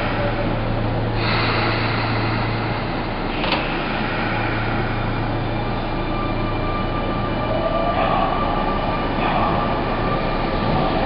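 Sotetsu 8000 series electric train departing an underground station: a sharp knock about three and a half seconds in, then whining motor tones that climb in pitch as the train accelerates away over a steady low hum.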